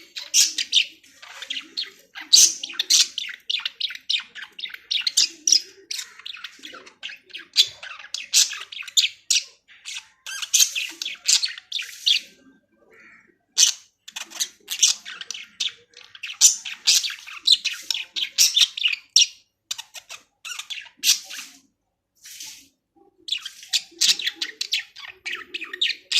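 Budgies chattering: quick runs of high chirps and warbles, with short pauses about halfway through and again near the end.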